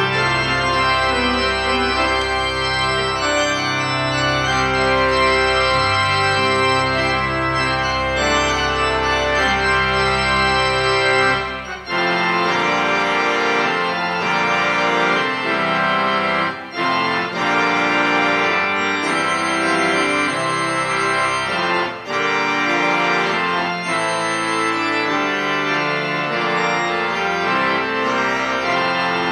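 Church organ played on two manuals: sustained chords over a low pedal bass, the bass dropping out about twelve seconds in, with short breaks between phrases.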